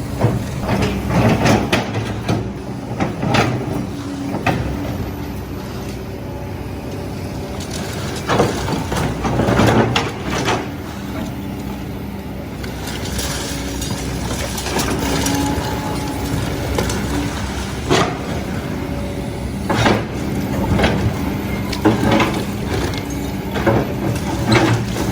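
Heavy rock-crushing machine at work: a diesel engine hums steadily under irregular crunching, scraping and knocking as its steel teeth break up stone.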